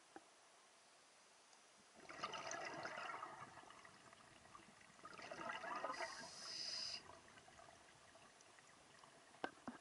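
A scuba diver's exhaled air bubbling out of the regulator in two bursts of about two seconds each, the second ending in a higher hiss, followed by two short clicks near the end.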